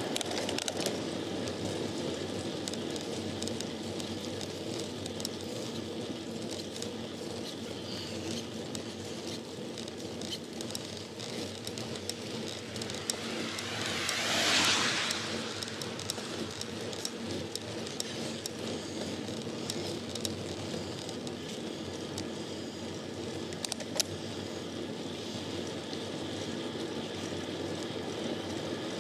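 Steady wind and tyre noise of a road bike on the move, picked up by a handlebar-mounted camera, with small clicks and rattles throughout. About halfway through, a vehicle passes, rising and falling over a few seconds. A single sharp click comes near the end.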